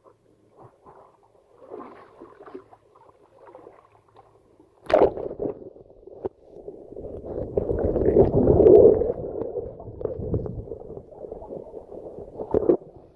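A splash as the camera goes under the water about five seconds in, then muffled underwater rushing and gurgling, loudest around eight to nine seconds in.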